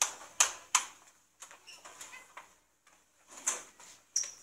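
Hands slapping and clapping together in quick handshake routines: three sharp slaps in the first second, then more a few seconds later.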